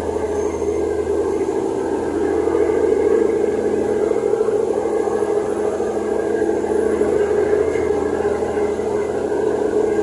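Steady drone of a river ferry's engines heard on board, an unbroken hum with several constant tones.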